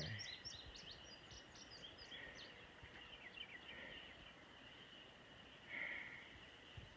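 Faint birdsong: a run of quick chirping notes in the first second or so, then scattered calls, over a steady high drone.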